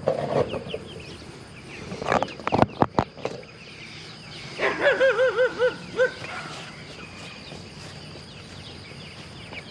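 A farm animal's call with a quick, quavering pitch, lasting about a second and a half near the middle, after a few sharp knocks.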